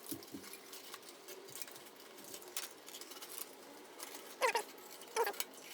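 Faint, irregular scratching and clicking from hands working with the furnace parts. There are two short squeaks about four and a half and five seconds in.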